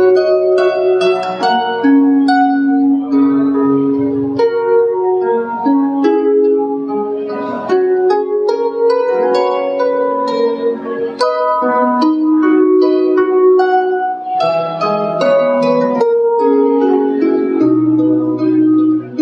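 Concert harp played by hand: a flowing run of plucked notes and arpeggiated chords ringing over low bass notes.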